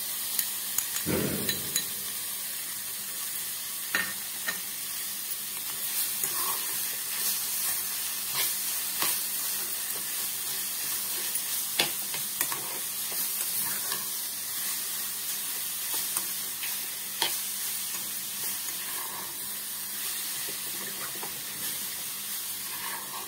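Grated beetroot sizzling as it fries in hot oil in a small stainless-steel saucepan, with a metal spoon stirring and clinking irregularly against the pan. A dull knock about a second in.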